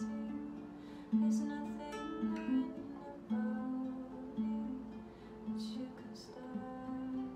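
Acoustic guitar strummed slowly, with no singing: a chord struck about once a second and left to ring, with faint string scrapes between chords. Recorded on a phone.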